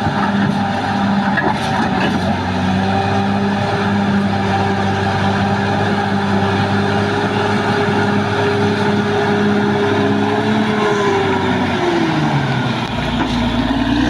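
Caterpillar D6R XL bulldozer's diesel engine running steadily under load. About eleven seconds in, its pitch falls as the revs drop, then it climbs again near the end.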